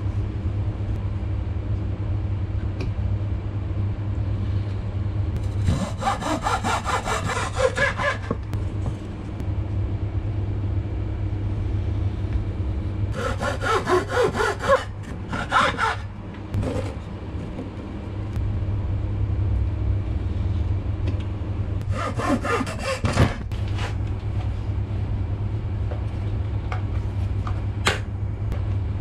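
Hacksaw cutting a thin wooden strip in three short bouts of quick back-and-forth strokes, the first about six seconds in, then about thirteen and twenty-two seconds in. A steady low hum runs underneath.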